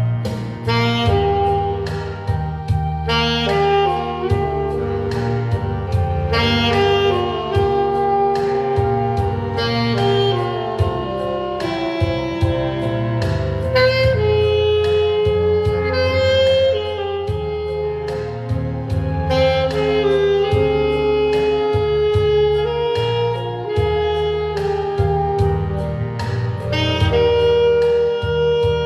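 Saxophone playing a jazzy melody of held and moving notes over a bass line and a steady beat.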